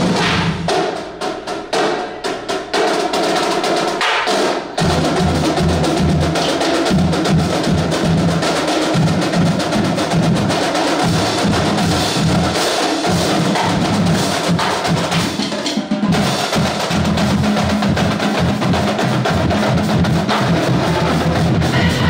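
High school marching band drumline playing: snare drums with sharp stick clicks and rolls at first, then bass drums and low brass notes from the sousaphones join about five seconds in and carry on as a full cadence.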